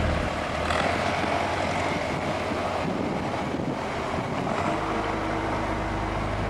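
Engine noise in the street with wind on the microphone. A steady drone that turns into a lower, even engine hum about three-quarters of the way through.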